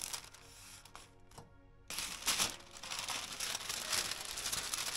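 Baking parchment paper rustling and crinkling as it is handled and folded, louder from about two seconds in, over soft background music.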